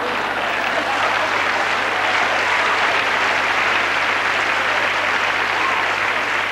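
Large theatre audience applauding a stand-up comedian's punchline: dense, steady clapping.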